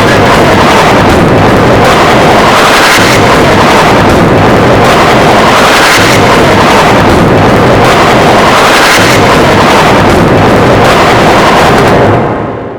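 Heavily distorted, clipped remix audio: an unbroken wall of loud noise with a rough pulse, fading out near the end.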